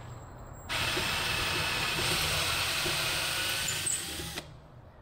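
Ryobi cordless drill running for about three and a half seconds, its bit fed down through a hinge into the wooden frame. It starts sharply about a second in and stops abruptly.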